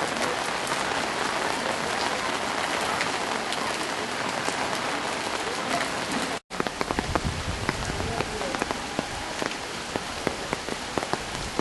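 Steady heavy rain falling on floodwater and hard surfaces. About six and a half seconds in the sound cuts out for an instant, and after that individual drops and splashes stand out over a lower rumble.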